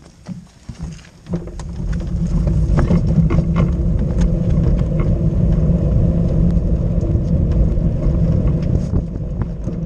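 Unpowered soapbox cart rolling down a rough asphalt road, its wheels rumbling steadily once it gathers speed about two seconds in, with frequent small knocks and rattles from the cart.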